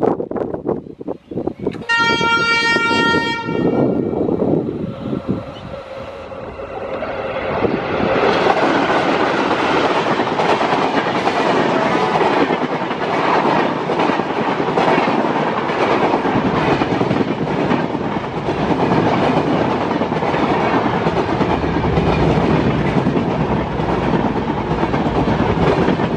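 Twin ALCO diesel locomotives at the head of a passenger express sound one horn blast about two seconds in, while their turbocharged engines grow louder as they approach. From about eight seconds the coaches rush past with a steady clatter of wheels over the rail joints.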